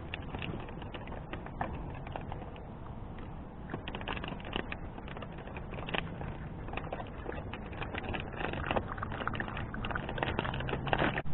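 Scattered light clicks and taps, then near the end a basenji lapping water quickly from a plastic bowl.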